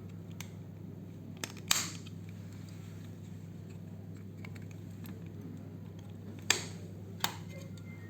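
Plastic clips of a TV remote's case snapping as a screwdriver prises them open: a few sharp clicks, the loudest about 1.7 s in and twice near the end, with fainter ticks between, over a steady low hum.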